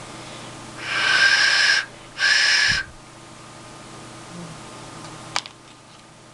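Unfired clay duck whistle (svistulka) blown twice in test, two breathy whistles at one steady pitch, the first about a second long and the second shorter, as its sound channel is being voiced. A single sharp click follows near the end.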